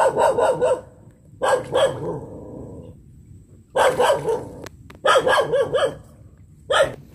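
A dog barking in short bouts, about five spread across several seconds with quiet gaps between them.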